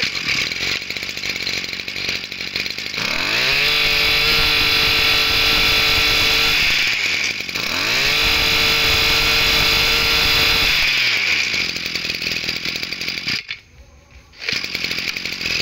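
Small two-stroke brushcutter engine, the 26cc Zenoah, running at low speed and then revved up twice to high speed, each time held for a few seconds. It drops back to idle and then stops a couple of seconds before the end.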